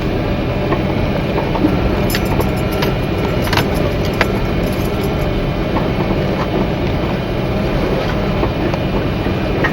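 1987 Ford Ranger pickup driving over a rough field road, heard from inside the cab: a steady rumble with rattles and clicks, thickest from about two to five seconds in.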